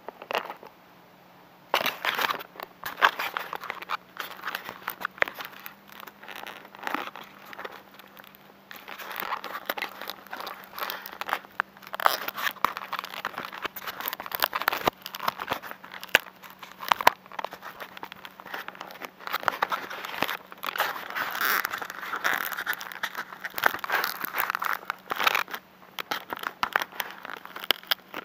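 Irregular crackling and rustling of grass and handling against the plane-mounted camera's microphone, starting about two seconds in, over a faint steady low hum.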